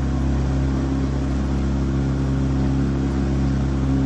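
A motorboat's engine running at a steady speed, a constant hum, with water rushing and splashing past the hull.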